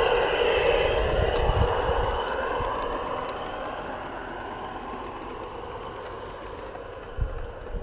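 LGB G-scale model trains rolling past close by on garden track: wheels clattering over the rail joints and a whine that drops in pitch, loudest early and fading as they move away. One louder knock comes near the end.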